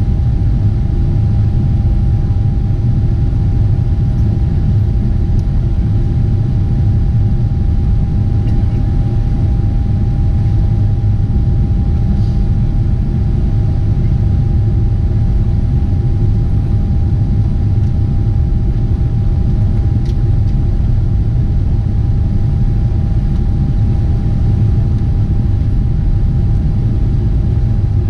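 Boeing 747-8 airliner in flight, heard from inside the cabin: a loud, steady low rumble of engines and airflow with a thin, constant whine above it.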